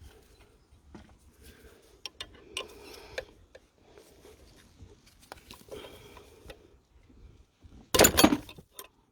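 Metal hand tools clinking and knocking against engine parts while spanners work on injector fuel pipe nuts, with scattered light clicks and a short, much louder metallic clatter about eight seconds in.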